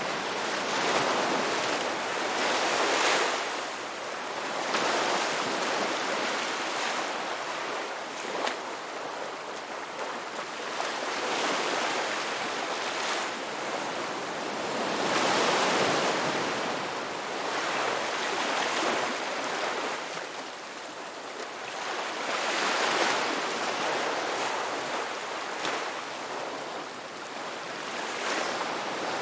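Ocean waves breaking and washing on a rocky beach, a steady surf that swells louder every few seconds as each wave comes in.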